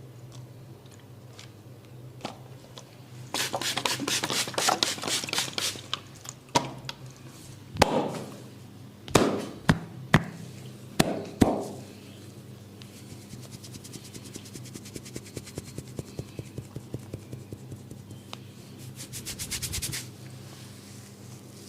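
Barber's hands drumming fast percussive massage strokes, about ten a second, then several sharp single hand strikes a few seconds later, fainter quick tapping, and another fast run of strokes near the end.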